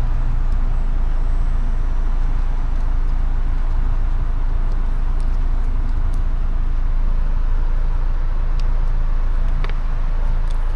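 Steady low rumble of an idling vehicle engine, with a few faint clicks.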